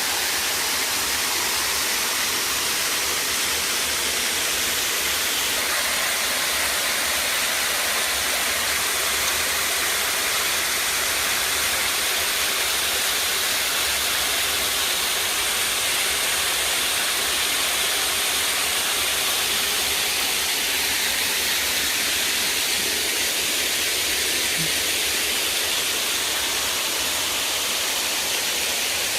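Waterfall rushing in a steady, unbroken hiss of falling and splashing water.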